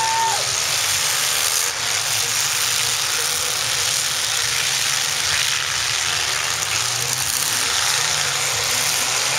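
Engines of several demolition derby cars running together, a steady loud mix of engine noise with no single event standing out.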